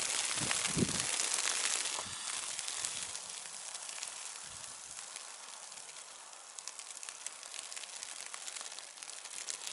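Wind and wet snow falling: a steady hiss with fine crackling ticks. Wind buffets the microphone with a few low rumbles in the first second, and the hiss grows quieter about two seconds in.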